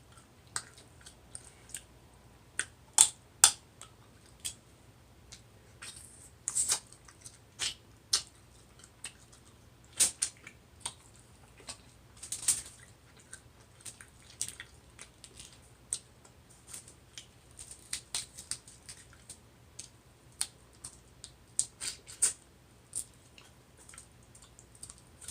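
Seafood boil being eaten: shells and food handled and broken, giving irregular sharp clicks and snaps, the loudest two about three seconds in.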